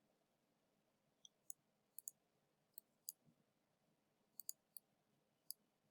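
Faint, scattered computer clicks, about ten short clicks over several seconds, some in quick pairs, against near silence.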